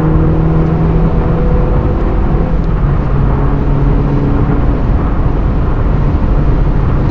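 Hyundai Veloster N's turbocharged 2.0-litre four-cylinder engine and exhaust droning at a fairly steady pitch under way at highway speed, mixed with dense road and tyre rumble, heard from inside the cabin.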